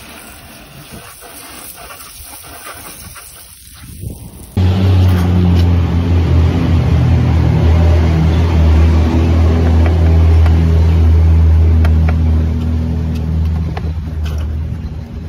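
A machine running with a steady low hum that cuts in suddenly about four and a half seconds in, after a quieter stretch of even noise.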